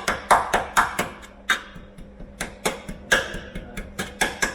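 A hand tool tapping and prodding at rusted steel bodywork on a Mk1 MX5: a quick, irregular run of sharp metallic taps, about three a second, some ringing briefly. This is a probe for rot, to see how far the corrosion has eaten through around the holes.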